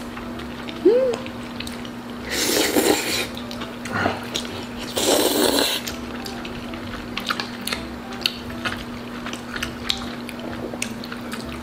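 Jjajangmyeon noodles slurped in two noisy bursts about a second long, about two and five seconds in, among chewing and small clicks, over a steady low hum.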